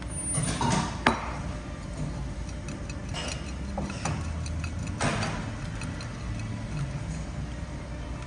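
A chili spice shaker shaken and tapped over a bowl of soba: a few short rattles and a sharp click about a second in, over a steady low hum.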